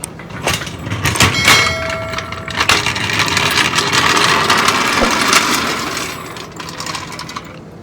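A few sharp knocks and a metallic clang that rings for about a second, followed by several seconds of loud scraping or hissing noise that fades away near the end.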